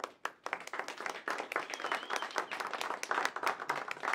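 Audience applauding: a few scattered claps at first, then steady clapping.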